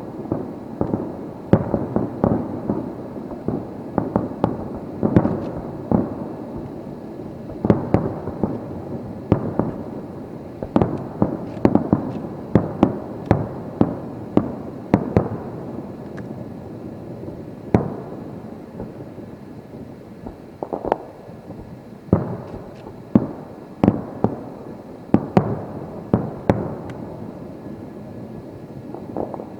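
Aerial firework shells bursting in rapid succession during a display's finale: many sharp bangs overlapping with a rolling rumble between them. The bangs thin out a little past the middle, then come thick again near the end.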